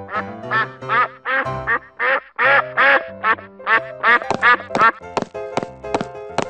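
Duck quacking in a quick run of short quacks, about three a second, over background music.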